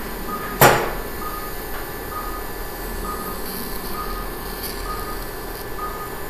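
Operating-room patient monitor beeping steadily, a short tone of one pitch about once a second, the pulse tone marking each heartbeat, over a steady hum. A single sharp knock just over half a second in is the loudest sound.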